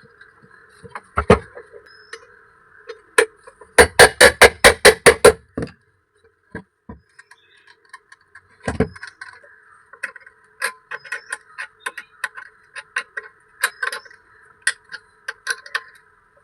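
Hammer blows on metal at a blacksmith's anvil: one heavy strike about a second in, a quick run of about ten blows, another heavy strike, then lighter irregular taps, over a steady hum.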